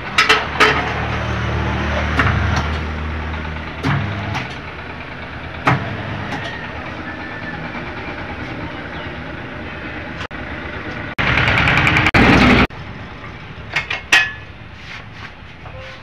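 Automatic tyre-changer machine running with a low hum while metal tools clank against the rim as a motorcycle tyre is worked on. About eleven seconds in, a loud rushing burst lasts about a second and a half, with more clanks after it.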